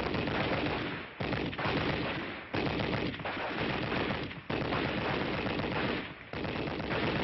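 Rapid gunfire in bursts a second or two long, with short breaks between them.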